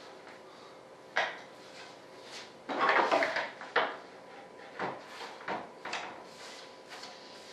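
Irregular clicks, knocks and short scraping noises as plastic spreaders are worked in to pry a molded vertical stabilizer out of its mold, with the loudest cluster of knocks about three seconds in.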